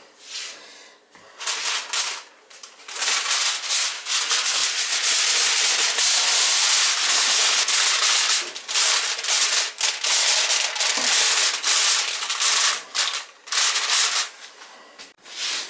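Aluminium foil crinkling and crackling as it is pressed down to cover a roasting pan, starting about a second and a half in and running almost without a break until near the end.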